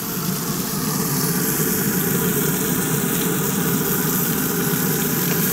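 Frog legs sizzling in grease and butter in a cast-iron skillet, a steady frying hiss over a steady low rumble.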